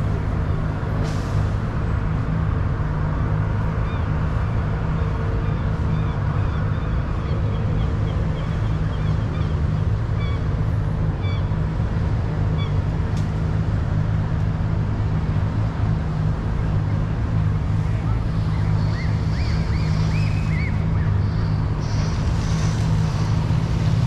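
Steady low rumble of city street traffic, with a few faint high chirps over it.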